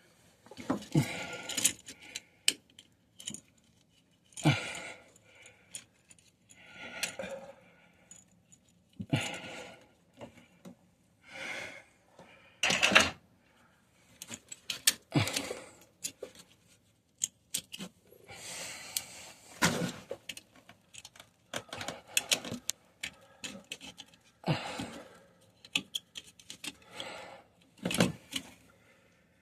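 Metal clinks and rattles in irregular bunches a few seconds apart: the steel clamp bands and screws of a Mission rubber pipe coupling being handled and started on a tub drain pipe.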